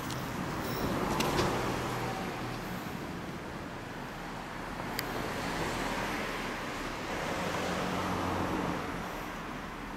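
Background road-traffic noise, swelling a little about a second in and again near the end, with a single faint click about halfway.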